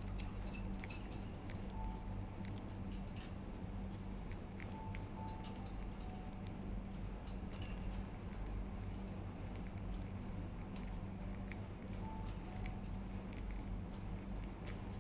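Budgies nibbling lettuce leaves: rapid, irregular crisp clicks of their beaks biting and tearing the leaves.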